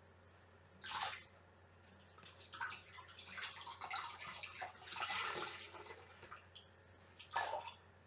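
Water splashing and dripping as a skein of wet, soaked yarn is lifted out of water and handled: a short splash about a second in, a longer run of sloshing and dripping in the middle, and another splash near the end.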